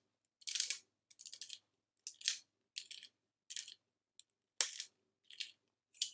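Pepper mill grinding black pepper: a string of short, gritty crackles, one per twist, quickening near the end.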